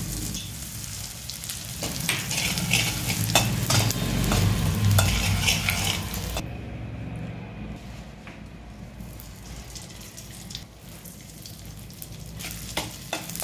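Powdered edible gum (gond) sizzling and foaming in hot ghee in an iron kadai, stirred with a metal spatula that scrapes and taps against the pan. The sizzle turns quieter about halfway through.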